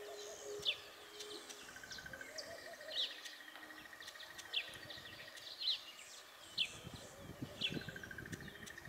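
Birds chirping: short, sharp, falling chirps repeated about once a second, over a steady faint high buzz that pulses briefly twice. A low rumble comes in during the second half.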